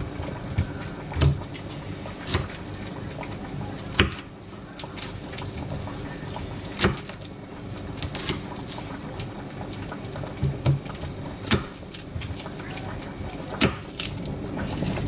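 Kitchen food-prep sounds: irregular sharp knocks and clicks of utensils and containers, about a dozen, over a steady low background noise.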